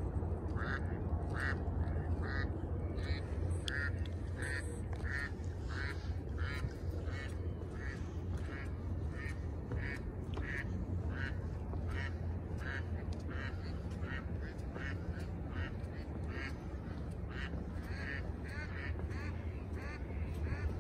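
A duck quacking over and over in an even series, nearly two quacks a second, over a steady low rumble.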